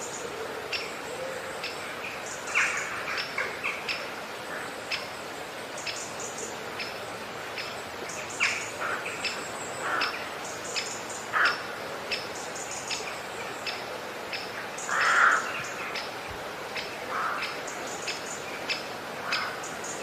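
Sliced onion frying in hot oil in a tiny pan: a steady sizzle with sharp crackles every half second or so. Several short chirps sound over it, the loudest about fifteen seconds in.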